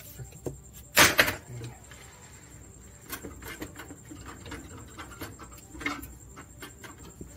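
Sharp knocks and clunks of the transmission being worked loose from the engine under the vehicle. A loud cluster of two or three knocks comes about a second in, followed by scattered light clicks and knocks.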